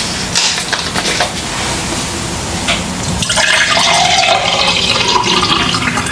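A drink poured from a bottle into a glass mug over ice cubes, the steady splashing pour starting about three seconds in.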